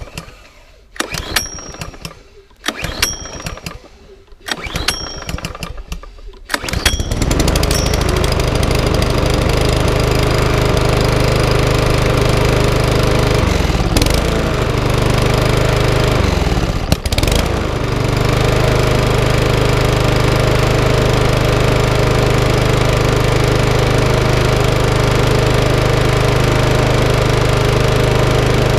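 Small four-stroke petrol lawnmower engine being pull-started: a few short pulls of the recoil starter, then it catches about seven seconds in and runs steadily, dipping briefly twice before settling. It is starting after a carburettor clean and a new primer bulb.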